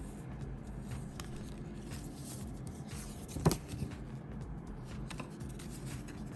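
Light scratching and handling sounds with one sharp knock about halfway through, over a steady low hum.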